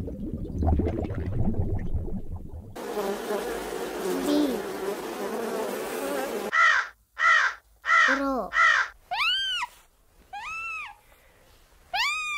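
Low underwater rumble, then a bee buzzing steadily for about four seconds, then otters calling: four short squeaks in quick succession followed by longer high chirps that rise and fall in pitch.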